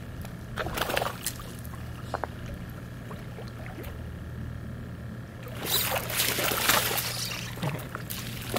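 Water splashing at the shallow edge of a pond for about two seconds, a little past the middle, over a steady low hum.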